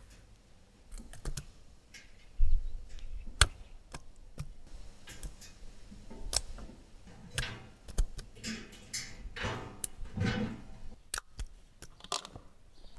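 Irregular sharp clicks and knocks, with a heavier thump about two and a half seconds in.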